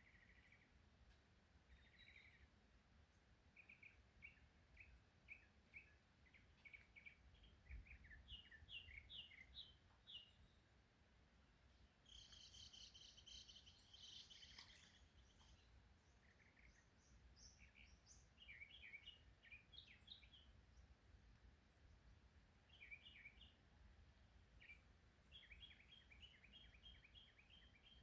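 Faint birdsong: series of short, quick chirps repeating throughout, with a denser, higher trill about twelve seconds in, over a faint high insect buzz.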